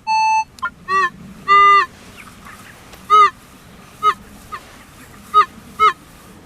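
Two short, steady electronic beeps from a metal detector at the start, then geese honking: about eight separate calls, each rising and falling in pitch, spread irregularly through the rest.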